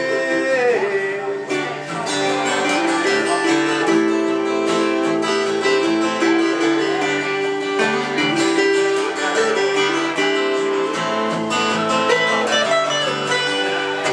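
Instrumental break of a slow country song: two acoustic guitars strummed, with an electric keyboard, no singing.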